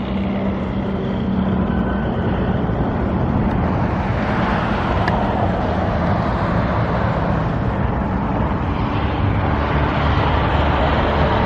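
Road traffic running steadily: an engine hum at first, then louder traffic noise from about four seconds in.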